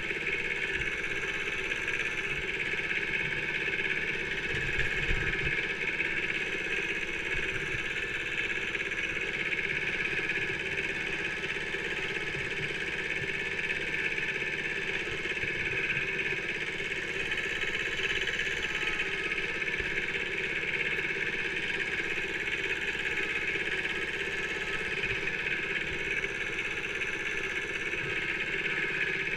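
Kubota B7000 mini tractor's small two-cylinder diesel engine running steadily as the tractor drives, with a few low knocks about five seconds in.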